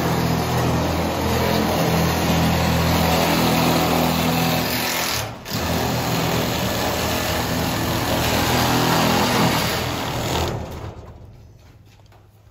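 DeWalt cordless electric metal shears running as they cut through a ribbed steel panel, curling off a strip of metal. The motor runs steadily, breaks off briefly about five seconds in, runs on again and stops near the end.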